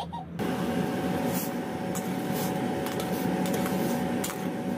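A pot of soup at a rolling boil, bubbling steadily while a metal ladle stirs it, with a few light clinks of the ladle against the steel pot over a steady hum. The bubbling and hum start suddenly a moment in.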